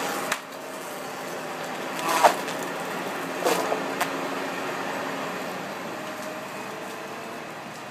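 Feller buncher at work: its engine and hydraulics running steadily, with a few brief sharp sounds, two of them sliding in pitch, as the felling head grips and cuts a tree.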